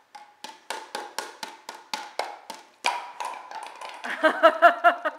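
Hollow plastic toy bowling pins knocked together over and over, about four sharp taps a second for roughly three seconds. A louder wavering voice follows about four seconds in.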